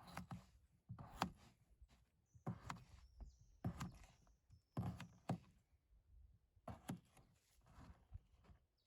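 A series of soft knocks and rustles, roughly one a second, with short pauses between them.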